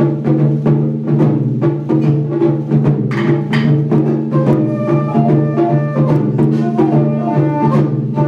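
Taiko drums beating a steady rhythm of about three strokes a second over sustained low tones. About halfway through, a higher melody joins in distinct stepped notes.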